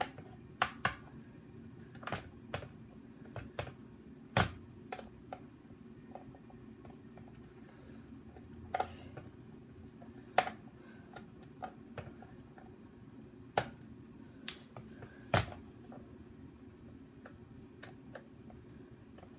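Irregular sharp clicks and knocks of plastic Nerf Hyperfire blaster parts and screws being handled and fitted together during reassembly, with the loudest knocks about four, ten and fifteen seconds in.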